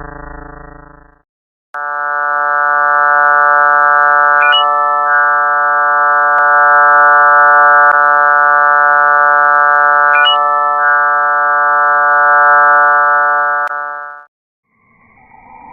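Space sonification presented as the sound of a body in Jupiter's system: a steady electronic drone of many stacked tones, with two brief rising chirps, about 4.5 and 10 seconds in. It cuts off sharply; near the end a different, wavering sound starts.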